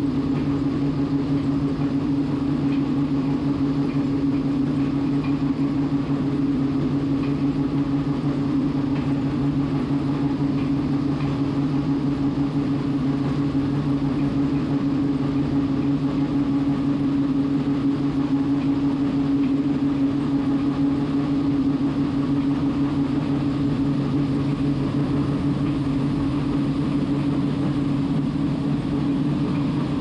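John Deere combine running at a steady, even drone while unloading black beans from its grain tank.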